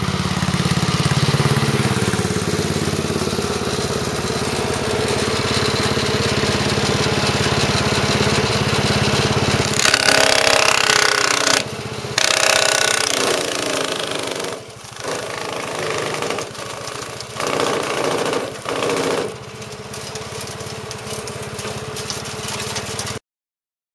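Freshly rebuilt wood chipper's engine running steadily; about ten seconds in, a branch is fed in and the chipper grinds it up in loud bursts, then runs on more quietly until the sound cuts off suddenly near the end.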